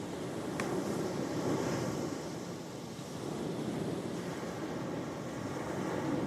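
Ocean waves washing on the shore in a steady rush that swells about a second and a half in and again near the end.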